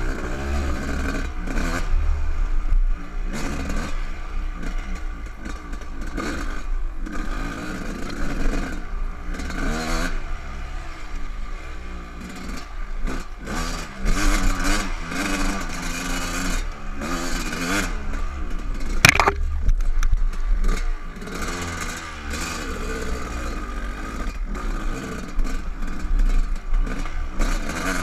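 Dirt bike engine revving up and down as the bike is ridden over a bumpy dirt trail, with wind buffeting the helmet-mounted microphone. A single sharp knock about nineteen seconds in.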